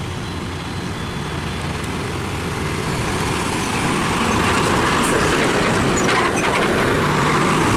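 A truck's engine running with road noise, growing slowly louder.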